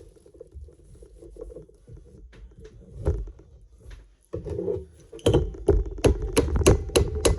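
Quiet knocks of parts being handled, then from about five seconds in a quick run of sharp hammer blows, about three a second.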